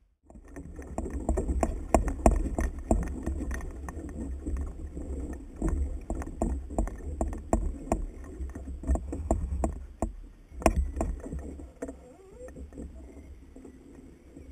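Plastic kayak hull and fishing gear knocking and rattling while a hooked fish is fought on a bent rod, over a steady low rumble. The knocks come thick and irregular, then thin out after about twelve seconds.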